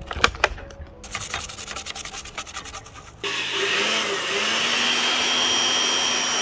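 A rapid run of scratchy strokes, then about three seconds in a handheld electric blower switches on and runs steadily: a loud rush of air with a high motor whine.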